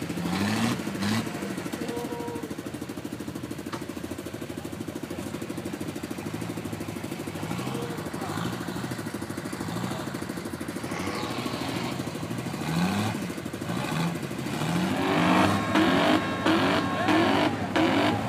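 Nissan Patrol 4x4 engine running as the truck crawls through a deep mud rut, with repeated short revs rising in pitch. The revving gets louder and more frequent near the end as it works to climb out.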